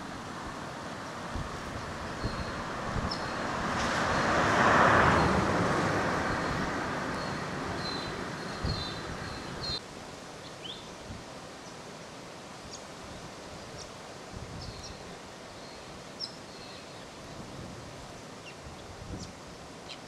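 Outdoor wind ambience with a broad rushing swell that rises and fades over several seconds, loudest about five seconds in, and scattered short, high, thin bird calls, most of them in the first half.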